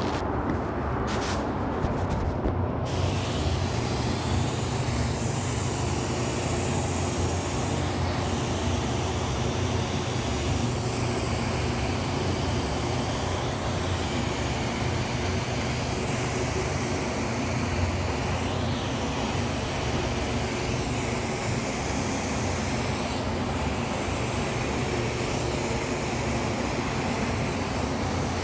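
Iwata Supernova Entech spray gun (1.3 tip, 26 PSI) hissing steadily as it lays down base coat, starting about three seconds in, with faint rises and falls every few seconds. A steady low hum runs underneath.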